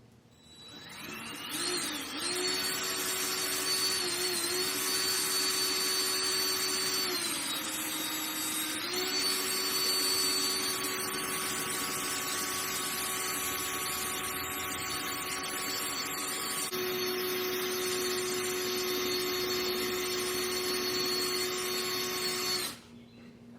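Electric drill with a 1/4-inch bit drilling out a sheared mower blade bolt, running at a steady whine for about twenty seconds. Its pitch sags briefly about eight seconds in as the bit loads up, and it stops suddenly near the end.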